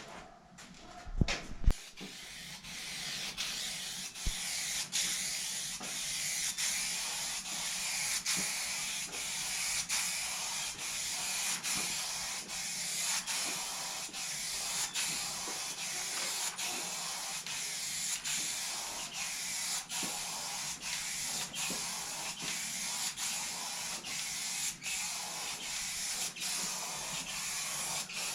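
Spray paint hissing steadily onto a primed car hood, swelling and easing every second or two with each pass. A couple of sharp knocks come just before the spraying starts.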